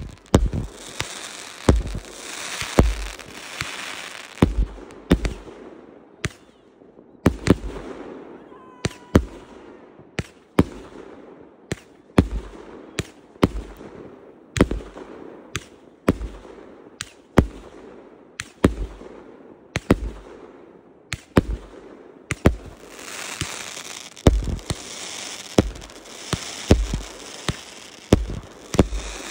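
Consumer fireworks cake firing shot after shot from the ground: a steady run of sharp bangs, a little more than one a second, as comets launch and burst overhead. A crackling hiss of sparkling stars fills the gaps at the start and again near the end.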